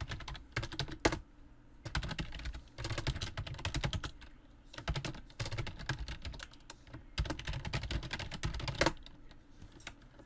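Computer keyboard typing in five quick bursts of keystrokes with short pauses between, stopping a little before the end.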